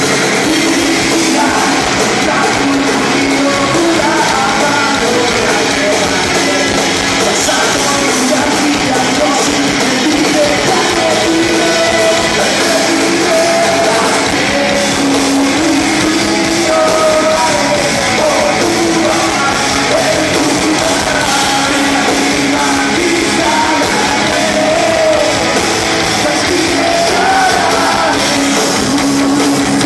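Live rock band playing a song loud, with a singer's voice over the band.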